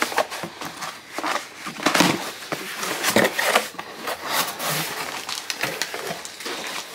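Cardboard shipping box being opened and rummaged through: flaps scraping and packaging rustling in a string of short, irregular crackles.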